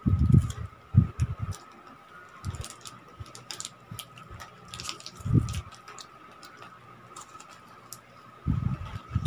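Crinkling of plastic chocolate-bar wrappers in the hands, short sharp crackles scattered through, with several dull low thumps and a faint steady high whine underneath.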